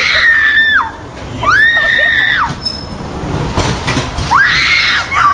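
Three long, high-pitched screams, each rising at the start and dropping off at the end. A low rumble sits between the second and third.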